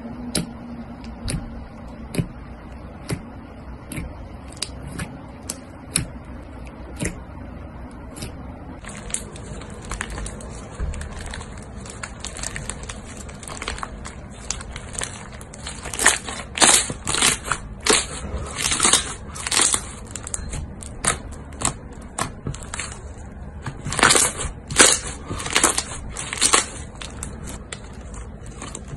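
White fluffy slime with small yellow beads mixed through it, squeezed, poked and stretched by hand: a run of sharp crackling clicks and pops as the slime and beads are worked. The clicks are sparse at first, then come thick and louder from about a third of the way in, in bursts.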